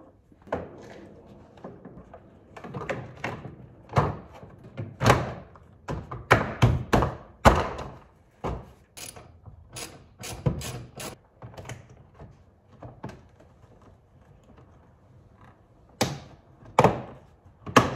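Plastic interior door trim panel of a Honda Civic being pressed and knocked back onto the door, its push clips snapping into place: a run of irregular thunks and clicks, most of them from about four to eleven seconds in and a few more near the end.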